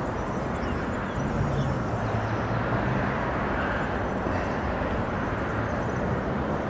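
Steady outdoor rumble and rushing noise with a faint low hum, growing a little louder about a second in.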